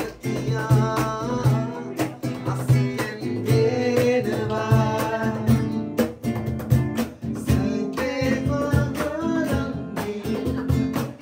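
Live acoustic guitar strummed along with a steady slapped cajón beat, with voices singing a melody over it.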